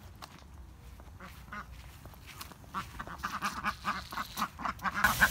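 Ducks quacking in quick repeated calls, growing louder from about halfway in. Near the end a garden hose starts to gush water.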